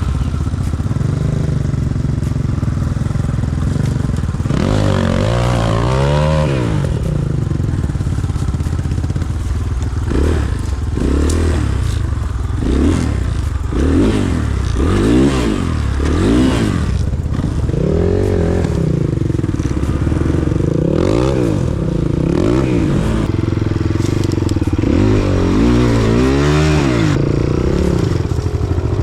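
Single-cylinder enduro motorcycle engine under way off-road, revved up and down again and again as the throttle is opened and closed, about once a second at its busiest.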